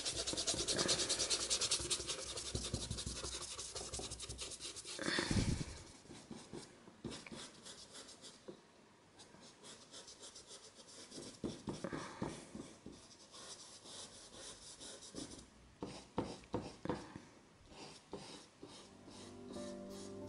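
Dry bristle brush scrubbing oil paint into canvas in quick back-and-forth strokes, dense for the first five seconds, then lighter, scattered strokes. A single thump about five seconds in is the loudest sound.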